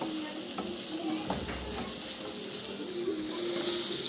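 Onion, boneless chicken, tomato and capsicum sizzling in hot oil in a non-stick pan while being stirred with a wooden spatula, with a few scrapes and knocks of the spatula against the pan.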